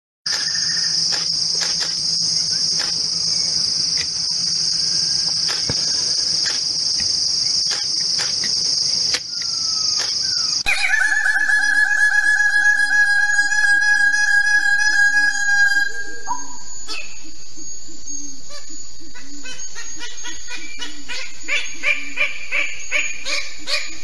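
Rainforest insects making a steady high-pitched buzz with scattered clicks. About ten seconds in, the sound cuts to a loud, rapidly pulsing animal call with a clear pitch that lasts about five seconds, then to another steady high buzz with a quick series of ticks near the end.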